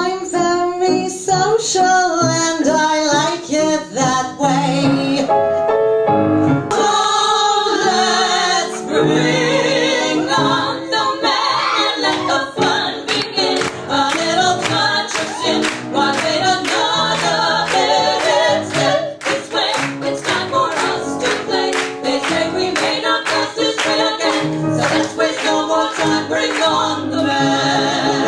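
Female vocal trio singing in harmony with piano accompaniment. From about nine seconds in the music takes on a quick, clipped rhythm.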